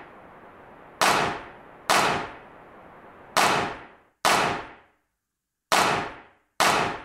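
Start of a music track: six sharp clanging percussion hits in a repeating short-long rhythm, each ringing out and dying away over about half a second.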